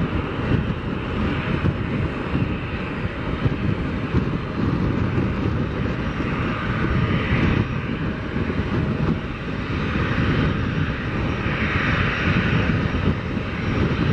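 Boeing 737-500's CFM56-3 turbofan engines running at low taxi power as the jet rolls onto the runway: a steady rumble with a jet whine that swells and eases a few times.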